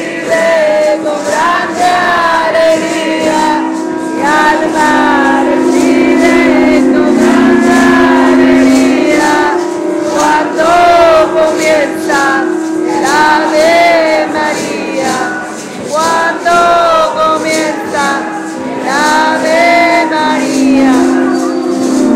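A group singing a ceremonial song together, the wavering melody carried over long, steady low held tones.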